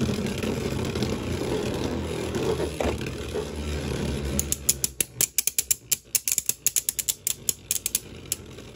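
Two Beyblade Burst spinning tops whirring and rattling as they spin in a clear plastic stadium, then, from about halfway, a run of sharp clicks as the tops knock against each other.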